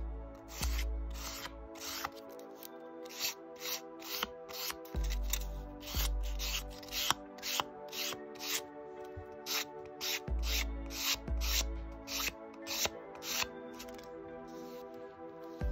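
Fine sandpaper rubbed along the painted edge of a leather strap, sanding the coat of edge paint smooth in quick short strokes, about two a second.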